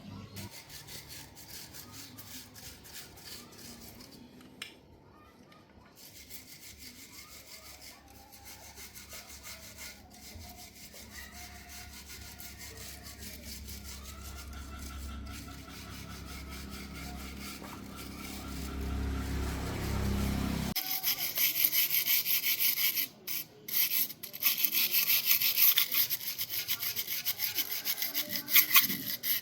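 A low steady hum that grows a little louder and then cuts off abruptly about twenty seconds in. It gives way to louder, rapid, rhythmic scraping strokes of hand abrasive work on a hard surface.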